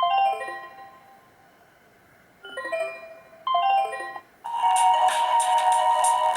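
Built-in ringtones of a Black Fox B5 (BMM531A) phone. A short descending chime melody of bell-like electronic notes plays twice, with a pause between. About four and a half seconds in, a different, denser ringtone starts, with a held tone over a rhythmic beat.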